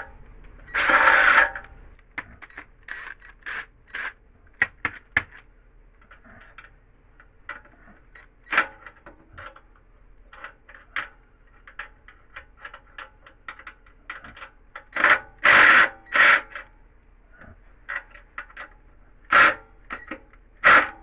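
Hand tools and bolts clinking and knocking on a pressure washer's metal frame during engine mounting: irregular sharp metallic clicks, with a few louder noisy bursts about a second long.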